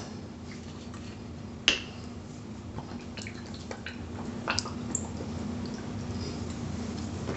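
Hot sauce being shaken from a bottle onto catfish steaks in a stainless steel bowl: soft drips and a few light ticks, with one sharp tap nearly two seconds in, over a steady low hum.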